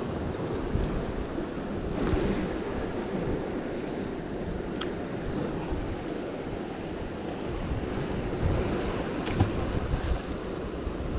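Wind buffeting the microphone over the steady wash of the sea, with a few faint ticks.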